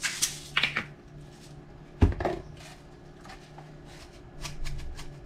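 Seasoning containers and a bowl being handled on a kitchen counter: light rattles and clicks, one loud knock about two seconds in, and a quick run of light taps near the end.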